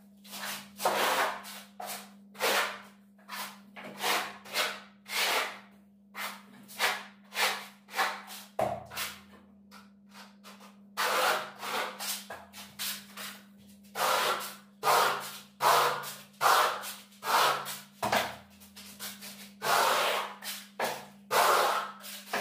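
Hand trowel scraping and rubbing decorative bark-beetle plaster on a wall in short strokes, about two a second, with a lull of a couple of seconds near the middle.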